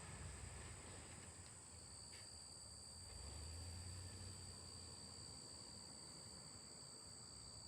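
Faint, steady high-pitched insect calls, two tones, with a second, lower one joining about one and a half seconds in, over a faint low rumble.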